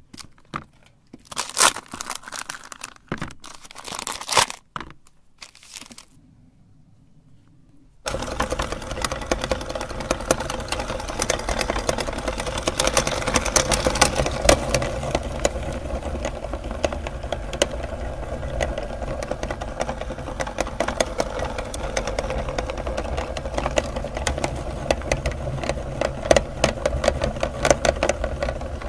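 Handling clatter and crinkle as chocolate bars are moved about for the first few seconds, then about eight seconds in a motor-driven meat grinder starts suddenly and runs steadily, with a dense crackle as its auger crushes the chocolate.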